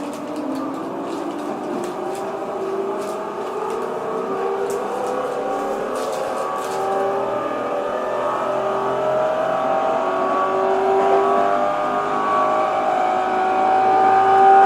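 Tokyo Metro 07 series train's VVVF inverter traction drive whining under power as the train accelerates. Several tones climb slowly in pitch together over the running noise, which grows gradually louder.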